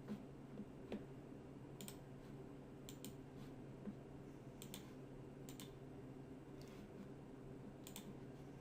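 Faint, scattered clicks of a computer mouse and keyboard, about ten irregular clicks over a faint steady low hum.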